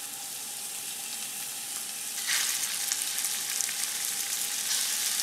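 Raw sausage sizzling in hot olive oil in a stainless steel skillet, a steady frying hiss that grows louder about two seconds in.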